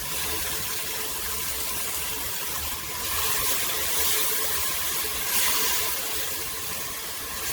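Chopped onion, peppers and tomato sauce sizzling in a hot pressure-cooker pot, a steady hiss that swells louder a couple of times.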